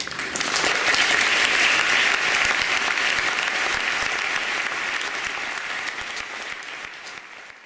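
Audience applause that breaks out suddenly, stays strong for a few seconds and then slowly fades away.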